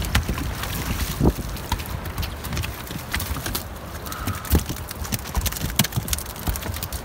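Scattered sharp knocks and clunks at uneven intervals in a fishing boat, over a steady low rumble.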